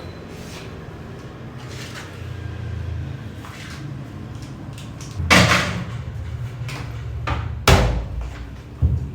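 A series of sharp knocks and clunks, like a lid or panel being moved and shut, the two loudest about five and a half and eight seconds in, over a low steady hum.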